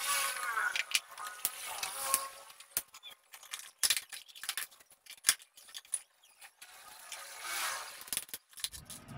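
Scattered clicks, taps and knocks as a small plywood box and plastic miniature circuit breakers are handled on a wooden workbench.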